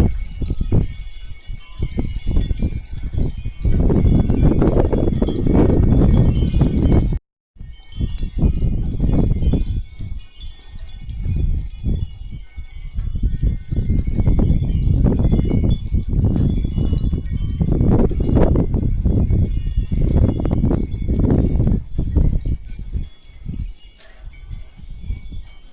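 Strong gusty wind buffeting the microphone, swelling and easing, with a light high tinkling of chimes throughout. The sound drops out for a moment about seven seconds in.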